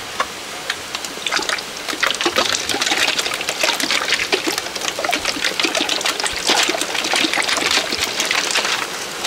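Soy sauce being poured in a trickling stream into a pot of braising liquid, splashing and crackling. It grows louder about two seconds in and eases off near the end.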